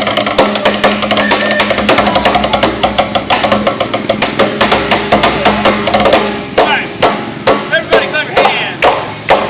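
Fast drumming with sticks over a loud backing music track; about two-thirds of the way in the hits thin out into separate, evenly spaced strikes.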